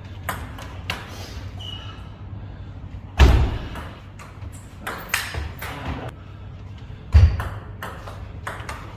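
Table tennis rallies: the plastic ball clicking sharply off the bats and the table again and again, with two heavy thuds about four seconds apart.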